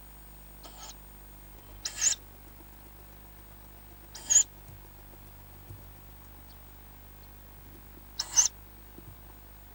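Tawny owl chicks giving short, high, hissing calls, four in all a couple of seconds apart, the first one faint.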